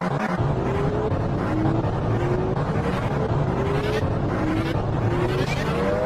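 Emergency warning siren sounding short rising tones about every half second, alternating between a higher and a lower pitch, over a loud steady rumble of noise.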